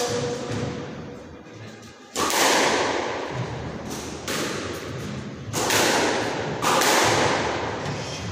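Squash ball being struck by rackets and hitting the court walls in a rally: a sharp smack about two seconds in, then further smacks every second or so. Each one rings out with a long echo off the hard walls.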